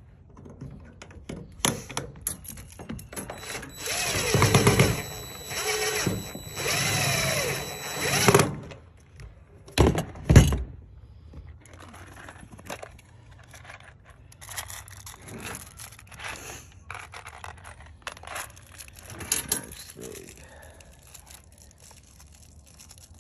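Cordless drill driving screws into a downspout adapter bracket: several short runs of the motor whine a few seconds in, followed by a couple of sharp knocks about ten seconds in.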